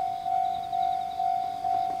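Japanese railway level-crossing warning bell ringing in an even, repeating ding, a little over two strikes a second, each fading before the next. It signals that the crossing is closing for an approaching train.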